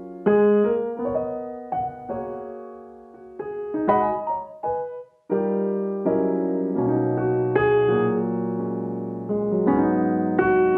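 Background piano music: a gentle melody of struck notes and chords that ring and fade, with a brief pause about halfway through.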